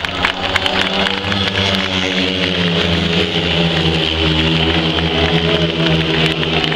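Four speedway bikes racing around the track, their 500 cc single-cylinder methanol engines making a loud, steady, blended drone that rises and falls slightly in pitch. Spectators clap near the start.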